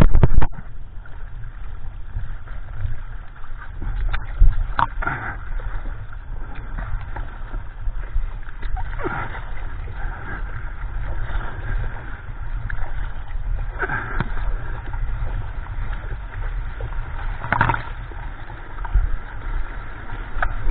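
Sea water splashing and sloshing against a foam surfboard in small waves, over a steady deep rumble, with a louder splash every four or five seconds.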